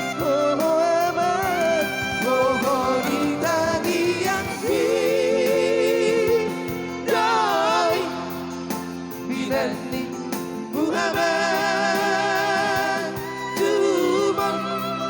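Batak song: a sung melody with wavering vibrato over steady held accompaniment chords, in a gap between the verses' words.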